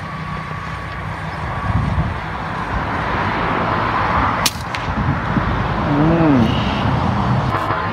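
Steady wind rushing over the microphone, with a single sharp crack of a PCP air rifle shot about four and a half seconds in. A short pitched call that rises and falls comes near six seconds.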